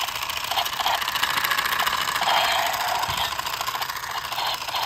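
Battery-powered toy pistol firing its electronic gun sound effect, a fast continuous buzzing rattle.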